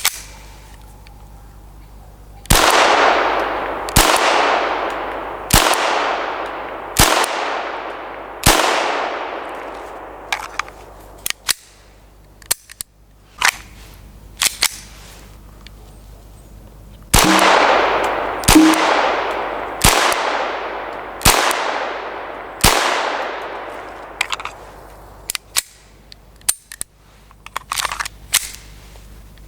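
Beretta 92FS .22 LR pistol firing CCI standard-velocity 40-grain rounds in two strings of five shots, about a second and a half apart, each shot followed by a long echoing tail. Smaller, sharper clicks come between the strings and after them.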